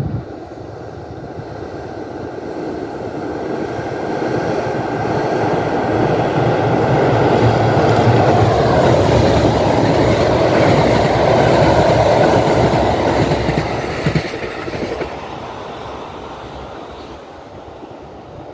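Kintetsu electric train crossing a steel girder bridge: the rumble of its wheels on the bridge builds, is loudest as the train passes about halfway through, then fades away. A falling tone is heard as it goes by.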